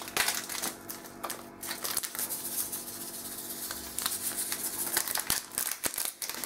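A small sachet of vanillin crinkling and rustling as it is handled and shaken out over a tray of pie mixture, a run of irregular little clicks and rustles over a steady low hum.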